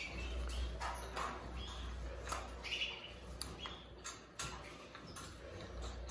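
Faint short chirps from canaries, with light clicks and taps as a plastic nest cup is handled against the wire cage, over a low rumble of handling.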